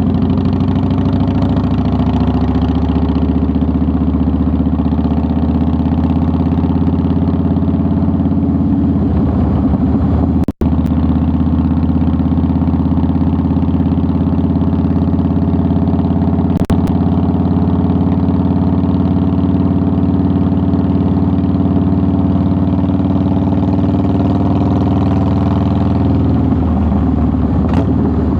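2009 Harley-Davidson Softail Deluxe's air-cooled Twin Cam 96 V-twin running at a steady idle, its low, even exhaust note holding constant. The sound cuts out for an instant about ten seconds in.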